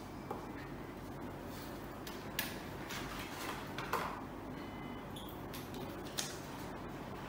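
Cut paper shapes being handled on a tabletop: a few short rustles and light taps, the loudest about two and a half and four seconds in, over a steady low background hum.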